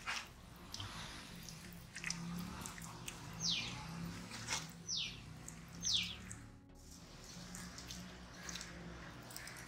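Wet squelching and smacking of hands kneading a thick masala marinade into a whole raw chicken. A bird calls three short downward-sliding whistles over it, the loudest sounds here.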